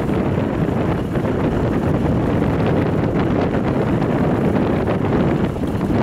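Loud wind buffeting the microphone, a steady low rumbling rush with small dips in strength.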